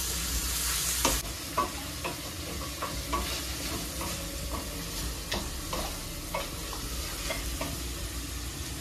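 Chopped onions frying in butter in a kadai, sizzling steadily while a wooden spatula stirs them, with short knocks and scrapes against the pan a couple of times a second. The sizzle is louder for about the first second, then drops to a softer level.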